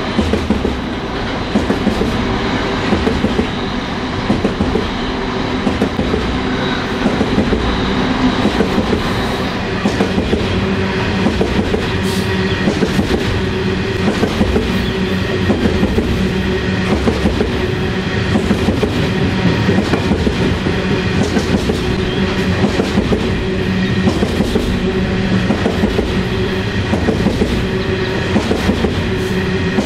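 A loaded coal train's hopper wagons rolling past on steel wheels, with a steady rail noise broken by regular clusters of clicks as the wheelsets cross rail joints.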